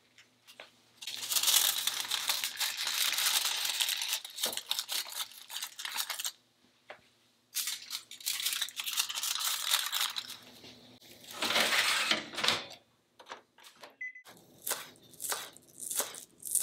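Aluminium foil being pulled, torn and crumpled in several long rustling stretches, as a fish-grill tray of grilled eel is lined and the eel tails are wrapped. Near the end comes a short beep, then a knife chopping green onions on a cutting board, at about three taps a second.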